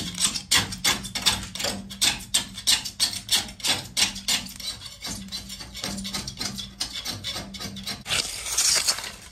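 Spray-foam insulation on a ceiling being scraped and dug out with a hand tool in quick repeated strokes, about three a second, ending in one longer rasping scrape near the end.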